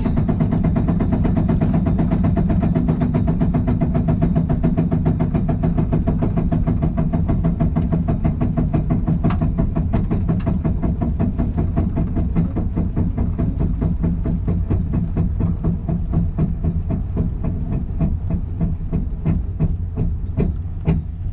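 Turbocharged LS V8 in a G-body Buick Regal drag car running at a low, choppy idle, a fast steady pulsing that eases off a little near the end. The crew hear something knocking and place it in the driveline.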